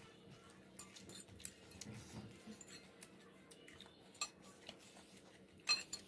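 Metal forks clinking and scraping on ceramic plates, a scattering of light clinks with the loudest near the end.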